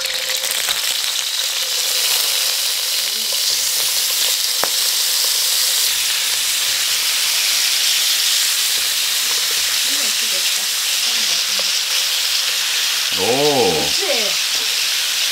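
Slices of pork liver sizzling steadily as they fry in a wok over a gas burner.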